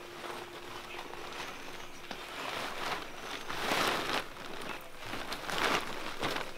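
Rustling and crinkling of a plastic rice sack as a hand pulls goods out of it, in uneven bursts that are loudest about four seconds in and again near the end.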